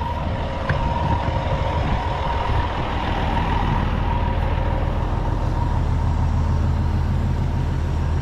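An engine running steadily with a low rumble, and a thin steady whine above it that fades about halfway through.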